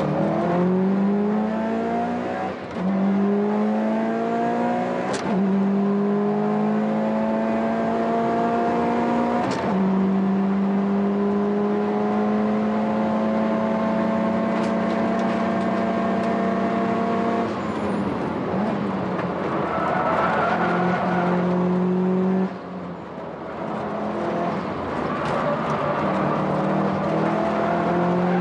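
Subaru WRX STI's turbo-swapped 2.0-litre flat-four under hard acceleration, heard from inside the cabin: the engine note climbs through the gears with upshifts about three, five and ten seconds in, then holds a long pull. About two-thirds of the way through the note falls away briefly, then climbs again.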